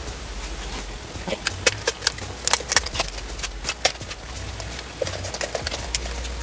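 Poultry shears snipping through a raw turkey's rib bones along the backbone: a run of sharp, irregular snaps and crunches, thickest in the middle, with a few more near the end.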